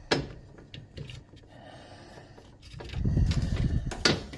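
Handling noise: a few sharp clicks and knocks, with a low scraping rumble for about a second and a half near the end.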